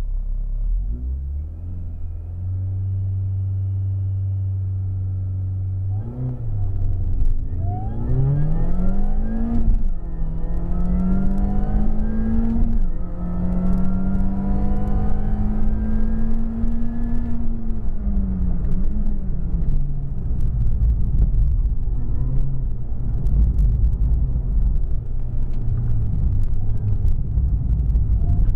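Supercharged 1.6-litre four-cylinder of a 250 bhp R53 Mini Cooper S, heard from inside the cabin. It is held at steady revs on the start line, launches about six seconds in with the revs climbing through two upshifts, then drops near the middle and runs at changing revs for the rest.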